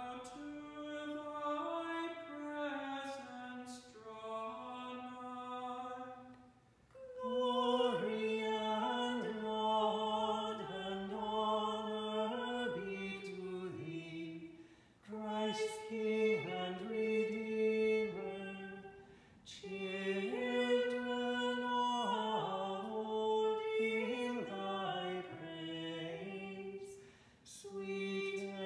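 Liturgical chant sung on a single melodic line, in long phrases of held notes that step up and down, with short pauses between the phrases.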